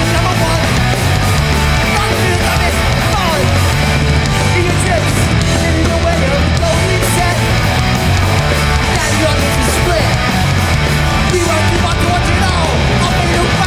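Live hardcore punk band playing at full volume, a dense, continuous wall of sound.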